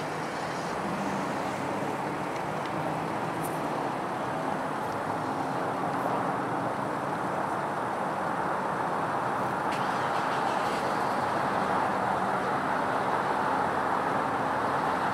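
Distant road traffic: a steady rushing hum that grows slightly louder toward the end.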